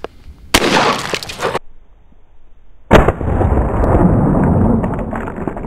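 Two shotgun blasts. The first comes about half a second in and cuts off abruptly after about a second. The second, louder blast comes about three seconds in, and its noise lingers for a couple of seconds afterwards.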